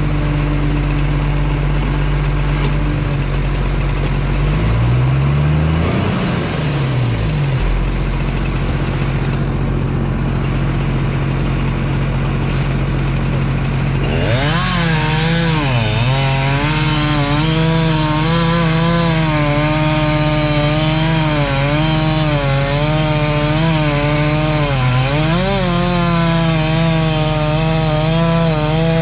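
Crawler machine's diesel engine idling steadily, with a brief rise and fall in pitch about six seconds in. About halfway through, a chainsaw joins in and cuts into a tree trunk, its pitch dipping and recovering again and again as the chain loads up in the wood.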